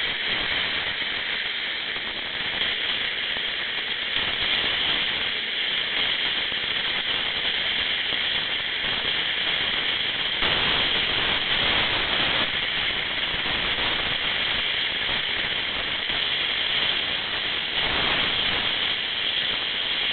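Steady hiss of carbon dioxide gas escaping from the valve of a CO2 cylinder, swelling and getting fuller for a couple of seconds about halfway through and briefly again near the end.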